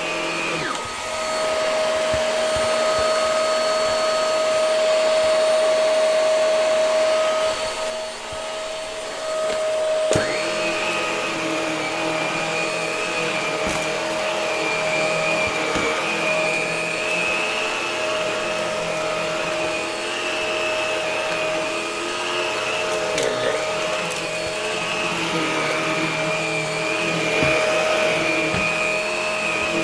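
Hart vacuum cleaner running steadily. Its higher whine drops away about a second in, comes back about ten seconds in and dips briefly again later, with scattered small clicks.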